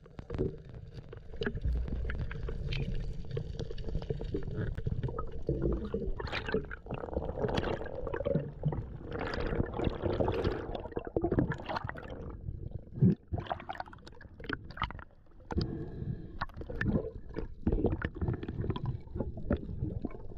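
Water sloshing and gurgling against the camera, with a low rumble and irregular knocks throughout.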